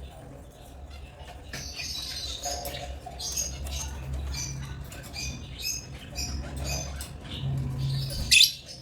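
African lovebirds chattering in quick, short, high chirps, with one loud sharp call near the end, over a low steady hum.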